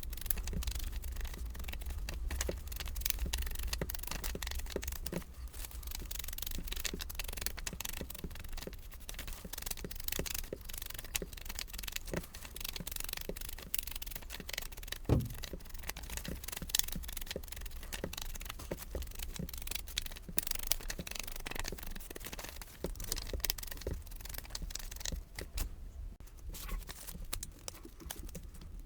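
Paper-crafting work at a table: irregular scratchy rubbing and light handling of paper pieces, with a single sharper knock about fifteen seconds in.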